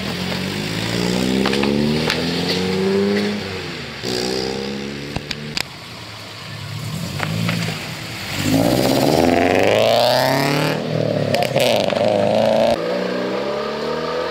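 Car engines accelerating as cars drive away, the engine note rising in pitch through the gears. About two thirds of the way in, one car accelerates hard, its note climbing steeply and holding high for a couple of seconds before cutting off.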